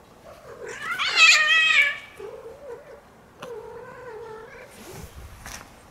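Cats caterwauling at mating: a loud, wavering scream about a second in, then lower, drawn-out yowls. A short rushing noise comes near the end.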